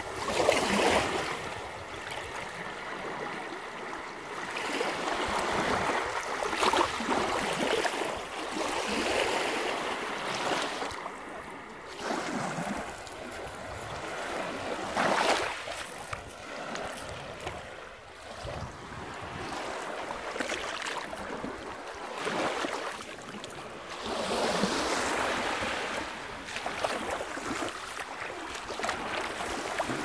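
Small sea waves washing in over a pebble beach, each wash swelling and fading every few seconds.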